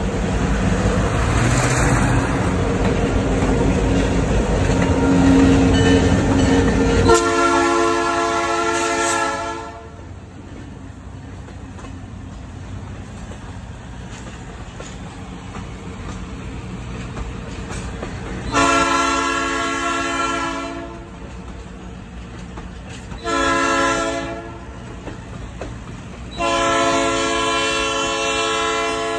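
Diesel locomotive's multi-note air horn sounding the grade-crossing signal: two long blasts, a short one, then a long one. Before the first blast the locomotive rumbles loudly close by, and a quieter rumble of the train runs between the blasts.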